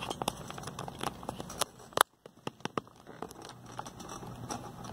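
Scattered light clicks and rustling of hands handling things on a workbench, with one sharper click about two seconds in.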